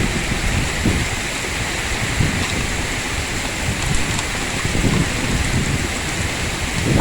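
Heavy rain falling in a steady hiss, with low rumbles from gusts of strong wind now and then.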